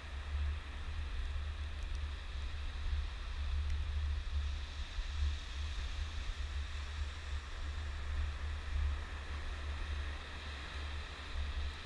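Wind buffeting the microphone in a gusty low rumble, over the steady hiss of surf breaking on the beach.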